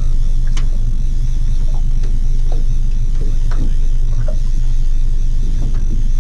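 Boat's outboard motor running steadily at trolling speed, a constant low drone, with a single sharp click about half a second in.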